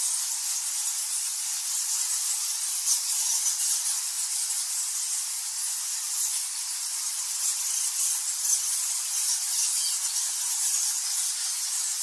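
A large swarm of bats in flight: a dense, steady high-pitched mass of squeaking and fluttering that blends into an even hiss.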